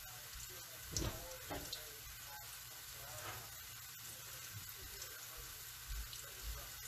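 Kitchen faucet running off to one side, a faint steady hiss of water into the sink.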